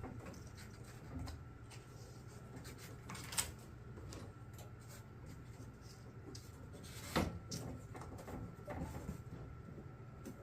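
Faint handling noise of work on the water heater's vent, with two sharp knocks, about three and seven seconds in.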